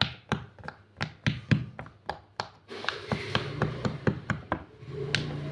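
Silicone pop-it fidget toy's bubbles pressed one after another with a finger: a quick run of short pops, about three or four a second.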